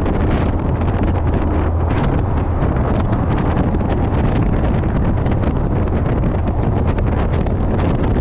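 Heavy wind buffeting on the microphone at riding speed, over the steady low drone of a motorcycle exhaust fitted with a Yoshimura Slip-On Oval Cyclone muffler, cruising at an even pace.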